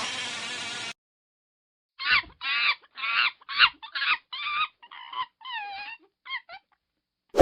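A burst of noise that cuts off about a second in, then after a pause a quick run of about ten short animal calls, each with a bending pitch, and the start of a sharp strike right at the end.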